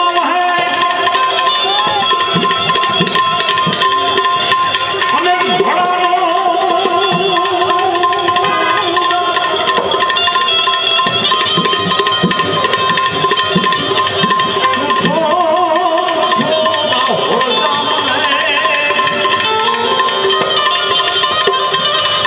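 Live bhajan music: tabla playing a busy, steady rhythm under a wavering melody line with vibrato, over a steady held drone note.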